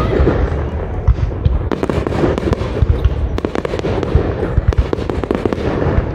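Fireworks display at full intensity: a dense, continuous barrage of rapid bangs and crackles over a steady low rumble.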